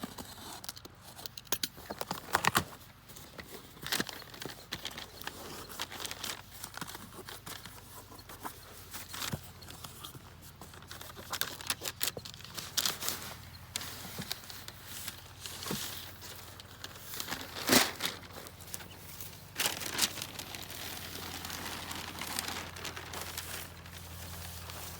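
Soft door uppers being handled and fitted to a Jeep TJ: irregular clicks and knocks with crinkly rustling of the fabric and frame, the loudest knock about 18 seconds in.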